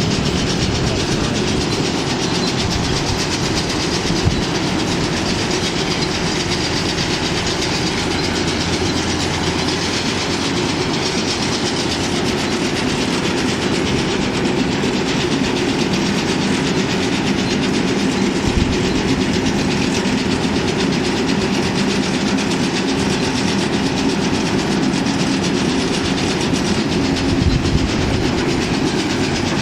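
Hesston 5800 round baler running under power from a tractor: a steady, loud mechanical clatter and rattle over a constant engine hum, with a brief knock about four seconds in and another near the end.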